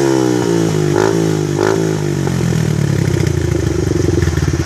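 Motorcycle engines revving, their pitch rising and falling, then settling into a fast pulsing run from about halfway through.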